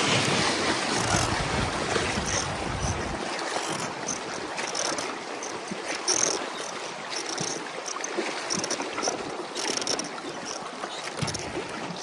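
River water rushing and splashing around a rowed inflatable raft running a riffle, loudest at first and easing after about four seconds as the water calms.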